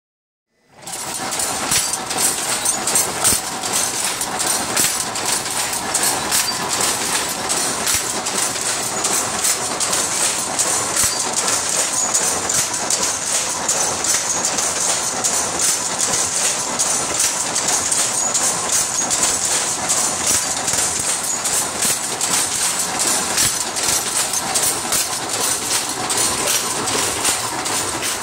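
Antique Dobcross shuttle loom running and weaving, a loud, steady mechanical clatter of rapid, evenly repeating clacks that starts about a second in.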